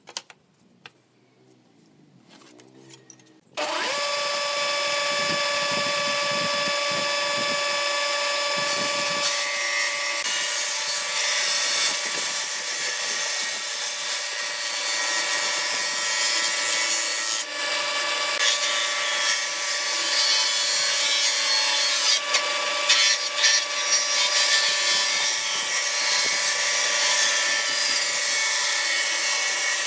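Table saw ripping through a glued-up pine board panel. A few faint clicks come first, then the saw starts suddenly about three and a half seconds in and runs loud and steady, with a held whine under the cutting hiss.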